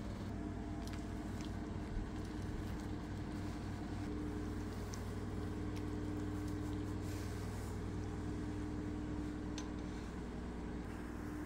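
Steady low mechanical hum, with a soft knock at the start and another about two seconds in, and a few faint ticks.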